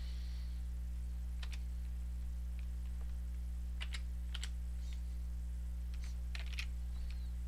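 A few scattered computer keyboard keystrokes, single clicks spaced a second or two apart with a close pair near the end, over a steady low electrical hum.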